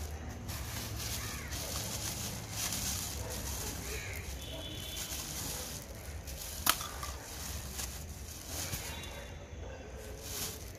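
Thin plastic carrier bag rustling and crinkling as it is handled and gathered at the neck, with one sharp click about two-thirds of the way through.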